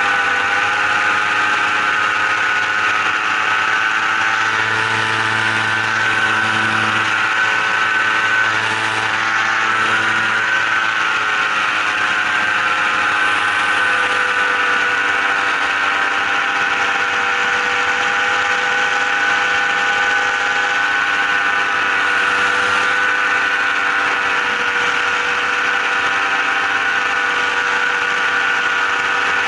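An engine or motor running steadily for the whole stretch, a droning hum with a strong whine whose pitch barely changes.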